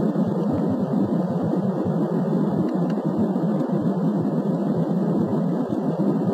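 Steady loud noise of a jet airliner's engines and airflow, heard inside the passenger cabin as the plane rolls at speed along the runway.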